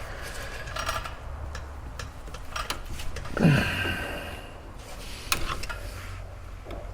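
Scattered metallic clicks and knocks of hand tools working on a seized, rusted brake caliper slide pin, with one louder sound about three and a half seconds in.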